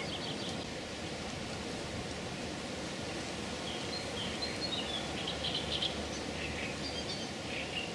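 Steady outdoor background hiss at the water's edge, with faint high bird chirps coming in from about three and a half seconds in.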